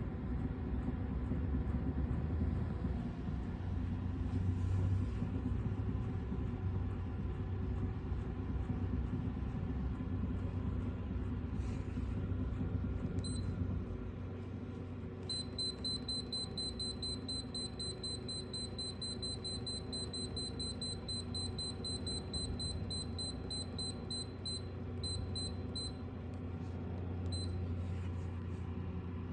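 Electronic beeping from a laboratory shaker's control panel: a single beep, then a fast run of high beeps at about four a second lasting some ten seconds, then one more beep, over a steady low hum.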